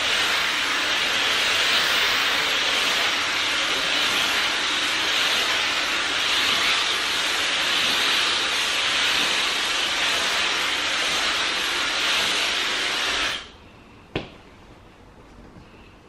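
Dyson hair dryer blowing steadily, a loud even rush of air, then switched off about thirteen seconds in; a single click follows just after.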